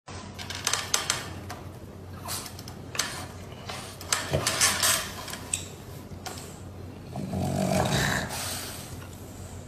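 French bulldog clambering onto a baby bouncer, with scattered clicks and knocks over the first few seconds. It then settles in and gives a longer, louder snore at about seven to eight and a half seconds.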